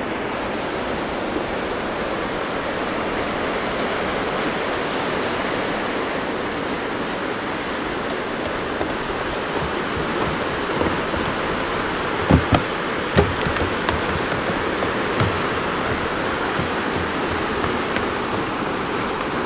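Steady rushing of ocean surf breaking on the rocks below the cliffs. A few sharp knocks come about twelve to thirteen seconds in.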